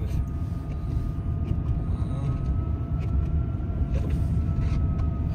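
Road and tyre rumble inside the cabin of a moving Tesla Cybertruck, with a faint high whine that rises a little and then falls away.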